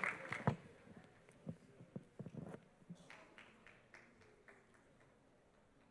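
Audience applause dying away in the first second, then a few scattered knocks and light taps before the room goes quiet.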